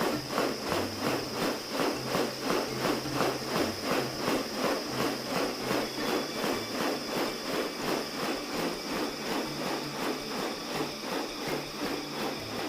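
Background music with a steady pulsing beat, about three beats a second, over a held high tone and a stepping bass line.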